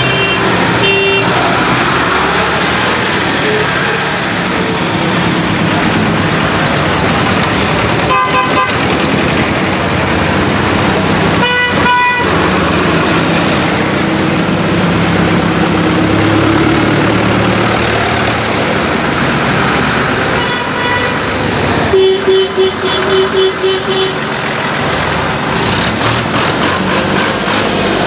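Tractor engines running as a line of vintage and modern farm tractors drives past, with horns tooting over them: short blasts at the start, twice more about a third of the way in, and a quick string of pulsed toots and rapid beeps in the last third.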